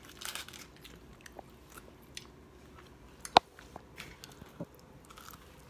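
Someone chewing bread close to the phone's microphone, with small rustles and clicks, and one sharp click about three and a half seconds in.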